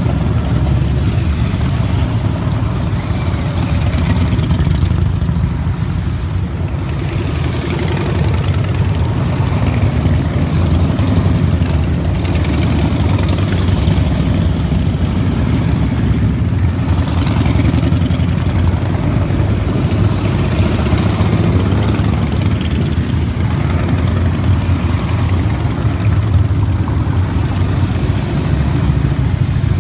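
A long procession of cruiser and touring motorcycles riding slowly past one after another. Their engines make a continuous low rumble that rises and falls a little as each group of bikes passes close.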